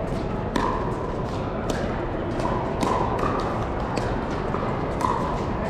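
Pickleball paddles hitting a plastic pickleball in a rally: a string of sharp pops, the loudest about a second apart, over the steady din of a large hall with play on neighbouring courts.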